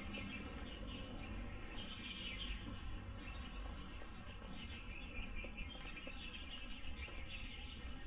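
Outdoor ambience: faint, repeated high chirping over a steady low rumble.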